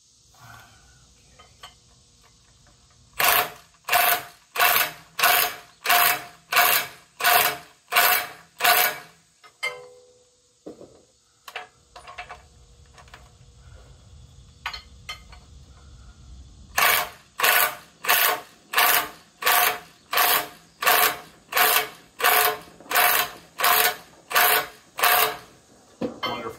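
Cordless impact wrench hammering on a bolt in short, evenly spaced bursts, about three every two seconds, tightening loose bolts on a track tamper's tamping tools. Two runs of bursts with a pause of several seconds between, in which only faint clicks are heard.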